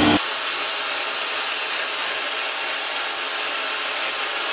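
Power tool working steadily on the workpiece: an even hiss with a thin high whine over it.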